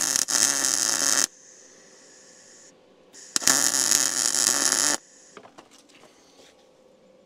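Arc welding on a steel truck frame rail: two short welding runs of about a second and a half each, starting and stopping sharply with a pause of about two seconds between, followed by a few faint ticks.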